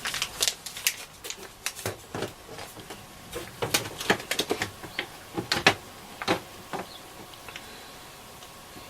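Irregular clicks and taps of small hard parts being handled on a workbench: an old multi-pin plug and socket being fitted and tried against a radio's case. The clicking thins out after about seven seconds.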